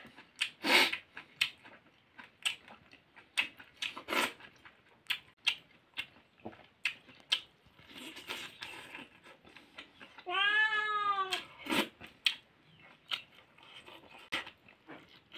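Close-miked eating sounds: lip smacks and chewing clicks from a man eating rice and beef innards by hand. About ten seconds in comes one drawn-out, meow-like call of about a second that rises and then falls in pitch.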